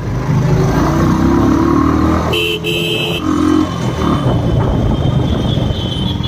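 Royal Enfield Bullet motorcycle riding in traffic, its engine running under a steady low rumble of engine, wind and road noise. A vehicle horn honks about two and a half seconds in: a short blast, then a longer one.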